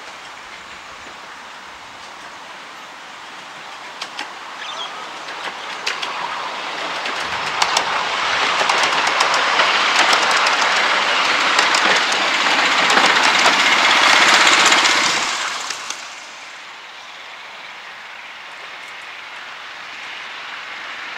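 Miniature railway train, hauled by a petrol-engined loco, running past on the track: wheels rumbling with sharp clicks over the rail joints, building to a peak and then stopping abruptly about sixteen seconds in. After that only a low, steady background remains.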